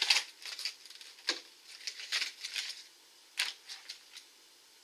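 Stiff clear plastic packaging crackling and clicking in the hands as it is pried open to get a spinnerbait out, in short irregular snaps with quiet gaps between.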